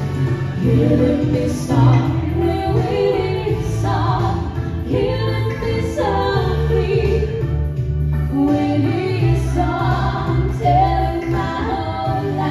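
Two women singing a duet into microphones over amplified instrumental accompaniment with a steady bass beat.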